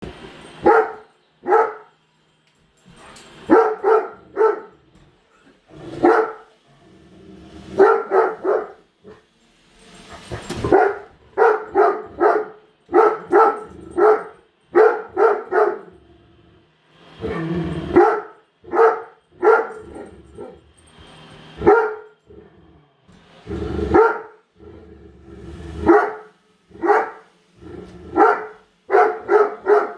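Great Dane barking over and over at a running robot vacuum: short, deep barks, often two to four in quick succession, with brief pauses between runs.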